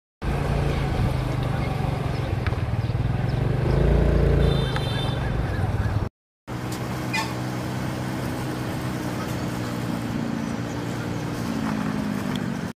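Engine of a moving vehicle running steadily, heard from on board. There is a brief high beep about four and a half seconds in. The sound cuts out for a moment just after six seconds; after that the engine note is a little higher and sinks near the end.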